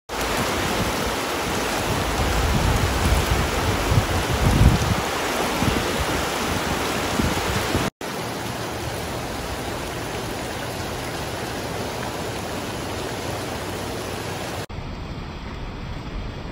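Floodwater of a swollen river rushing and churning past buildings, a loud steady roar of water. Low rumbling swells in the first few seconds; the rush drops to a quieter, even hiss at a cut about eight seconds in and again near the end.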